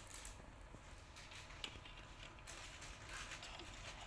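Faint, scattered clicks and rustles of small plastic toy pieces being handled, with one sharper click partway through.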